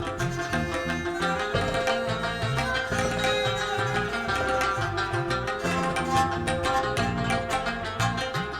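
Instrumental break in an Afghan/Tajik folk song: quick plucked rubab melody over steady tabla strokes, with a held drone note underneath.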